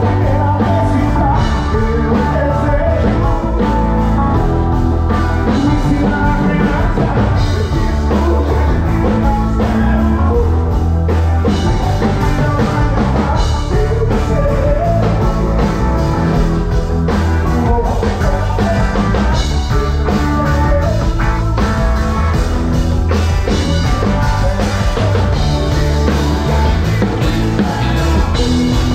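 A band playing a song at a soundcheck: singing over drums and bass, loud and continuous.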